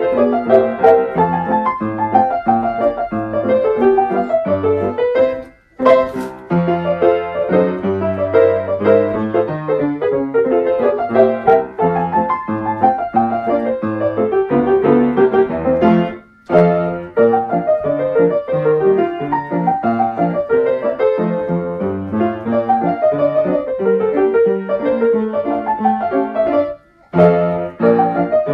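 Player piano playing a piece from a perforated paper roll, a continuous stream of piano notes. The sound cuts out briefly three times: about a fifth of the way in, just past the middle, and near the end.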